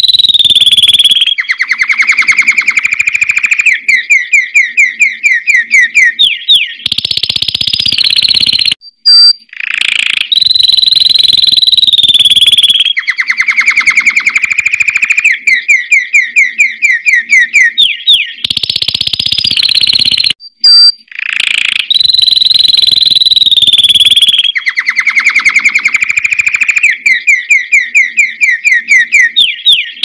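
Canary singing a loud song of long high whistled notes and fast rolling trills, the same run of phrases coming round about every ten seconds, with two brief breaks.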